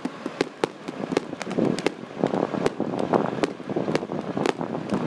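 Fireworks going off: a rapid, irregular string of sharp bangs and pops.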